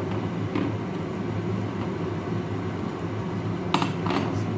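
Steady low hum of a running kitchen appliance at the stovetop. Near the end come two short clinks of glass or metal as the pan's glass lid is handled.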